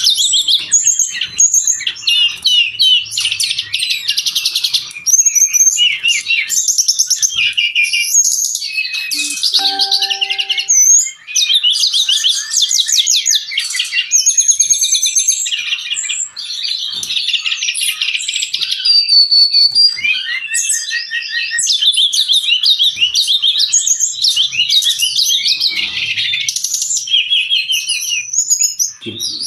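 Brown-chested jungle flycatcher singing a rapid, almost unbroken run of high chirps, trills and short whistled notes.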